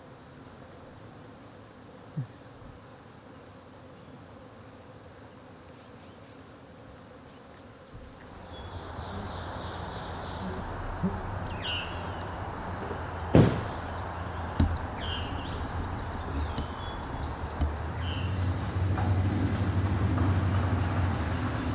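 Faint steady hum of a honey bee swarm clustered on a tree branch. About eight seconds in it gives way to louder woodland sound: scattered birdsong, a low rumble that grows toward the end, and two sharp thumps about a second apart in the middle.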